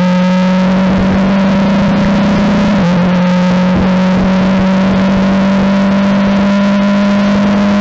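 Onboard sound of a Formula 4 car's four-cylinder engine at full throttle, its note climbing slowly as the car accelerates, with one quick upshift about three seconds in that drops the pitch before it climbs again. Wind and road noise run underneath.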